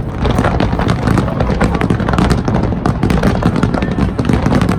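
Fireworks display: a loud, dense barrage of overlapping booms and crackling bursts over a continuous low rumble.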